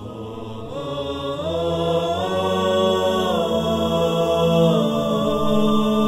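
Intro music: a wordless a cappella vocal chant of long held tones over a steady low drone, the melody gliding up about a second and a half in and back down a couple of seconds later.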